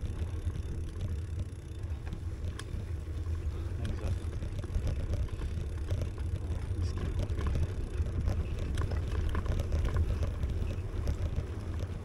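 Steady low rumble of wind on the microphone and tyre noise while riding a folding bicycle, with a few faint clicks.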